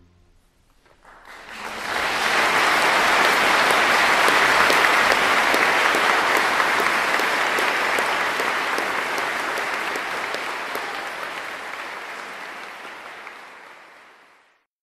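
Audience applauding: the clapping swells about a second in, holds steady, then slowly fades out near the end.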